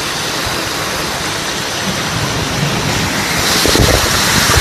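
Steady hiss of falling water and spray over a shallow pool, growing louder about three and a half seconds in with splashing and low knocks on the microphone.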